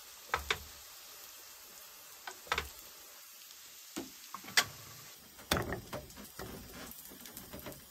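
Potato pancakes sizzling as they fry in oil in a nonstick pan, with a few sharp scrapes and taps of a wooden spatula against the pan as they are turned. About five and a half seconds in, a louder knock followed by a clattery stretch as they are moved onto a metal plate.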